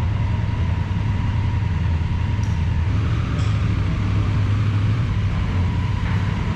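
Steady low engine rumble with a faint constant high tone above it, and a couple of faint ticks.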